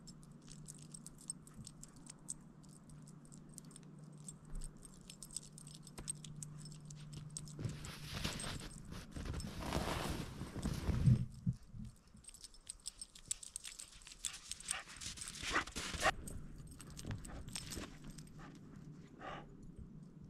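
Steps crunching through snow in a rapid run of small crackles, with a louder rushing swell for a few seconds near the middle.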